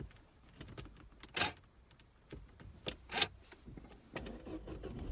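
A few sharp clicks and rattles of the key and controls being handled, then near the end a low rumble as the Citroën's turbo petrol engine is started, the last step of a scan tool's fuel-pressure adaptation procedure.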